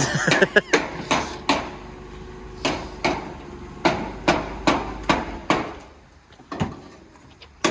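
A series of sharp, irregularly spaced knocks like hammer blows on metal, about a dozen of them, becoming sparser and quieter after about five and a half seconds.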